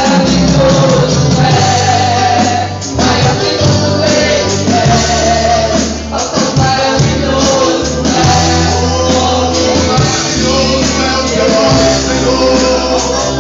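Live worship music: a band with bass and percussion, tambourine among it, playing under sung vocals.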